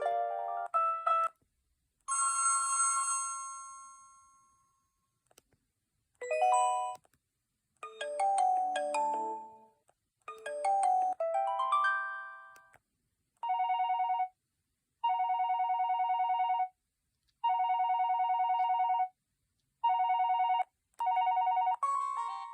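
Preloaded ringtones on a ZTE Z331 phone playing one after another through its speaker: several short electronic melodies and one long fading tone, then a trilling ring that repeats in bursts of one to two seconds over the second half.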